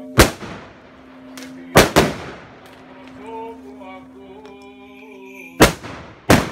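Firecrackers going off on a street: five sharp bangs, one at the start, two in quick succession about two seconds in, and two more near the end.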